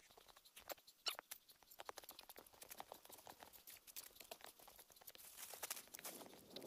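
Faint, irregular crunching and crackling of footsteps and movement in snow. Near the end the tent fabric begins to rustle as it is lifted.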